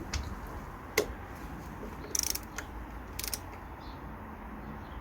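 Ratchet wrench clicking in two short rapid runs as a bolt is worked, with a few single sharp clicks and knocks.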